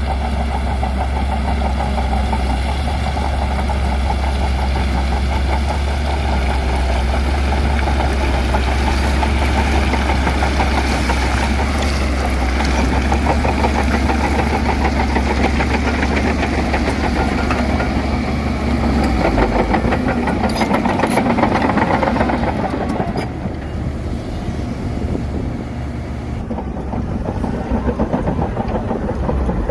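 Heavy diesel engine of a bulldozer running under load, a steady low drone that changes note about two-thirds of the way through and then eases a little.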